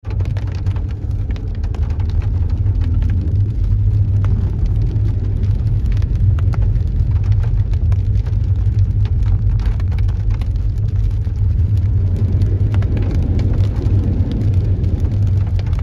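Inside a moving car on a rain-soaked, flooded road: a steady low drone of the engine and tyres, with rain tapping constantly on the roof and windscreen.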